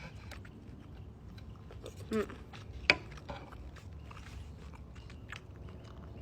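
Close-up chewing of steak: scattered wet mouth clicks and smacks, with one sharp click just under three seconds in.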